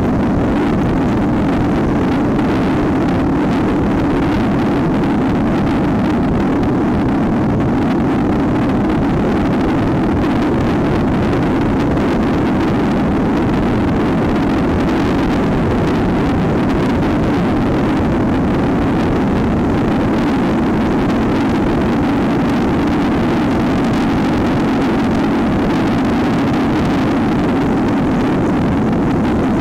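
Dirt bike engine running steadily at cruising speed on the road, with wind rushing over the bike-mounted camera's microphone.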